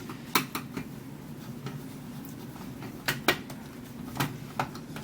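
Sharp metallic clicks and clinks from screws and a screwdriver being handled against a stereo receiver's metal chassis during disassembly: a few near the start, a pair about three seconds in, and two more near the end, over a steady low hum.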